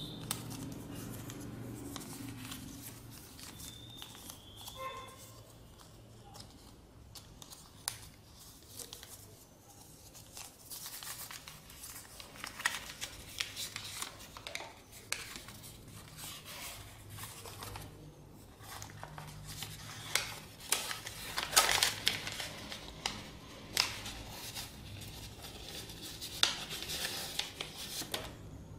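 Sheet of paper being folded by hand: rustles and crisp crackles as creases are made and pressed flat. The crackles are sparse at first and come thicker and louder in the second half.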